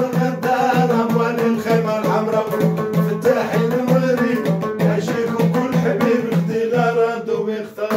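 A man singing a folk song while accompanying himself on a Moroccan lotar, a long-necked plucked lute, whose low notes repeat in a steady rhythm. The music dies away just before the end.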